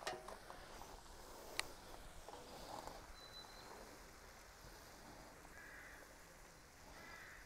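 Metal tongs clicking sharply twice against a steel pan, with faint rustling as stir-fry is turned over. A bird calls twice, faintly, in the second half.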